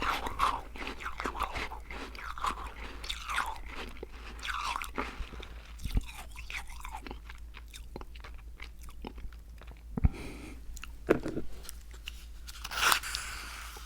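Crunchy Icee cookies being bitten and chewed close to the microphone: a steady run of crisp crackling chews, with a few louder crunches around 6, 10, 11 and 13 seconds in.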